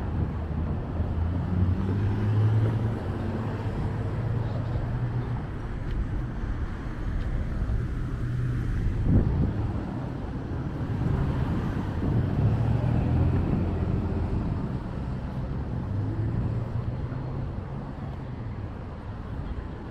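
Road traffic passing along the highway: a steady tyre-and-road hiss, with engine hum swelling and fading as cars go by one after another, loudest about nine seconds in.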